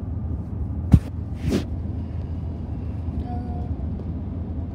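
Steady low rumble of a car's cabin on the move, with a sharp knock about a second in and a brief rustle half a second later.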